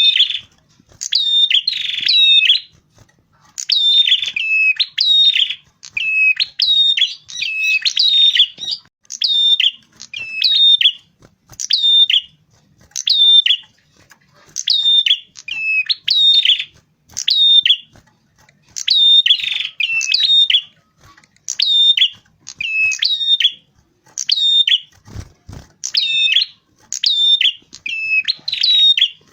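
Prenjak kepala merah, a small prinia-type songbird, singing loud, high chirping phrases of quick notes, repeated about once a second with short gaps. A brief low thump comes about 25 seconds in.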